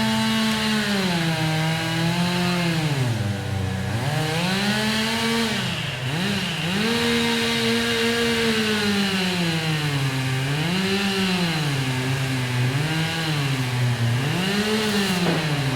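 Chainsaw running and cutting, its engine pitch rising and dropping again and again.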